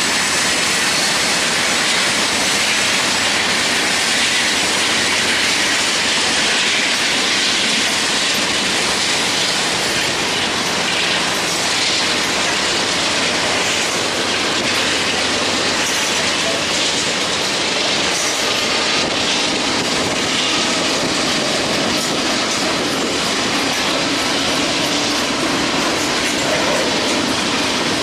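Freight train of tank cars rolling past: steady, loud noise of steel wheels on the rails, with some clicking over rail joints.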